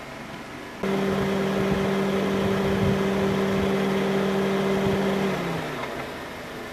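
A motor's steady hum cuts in abruptly about a second in, holds one even pitch, then drops slightly in pitch and dies away near the end.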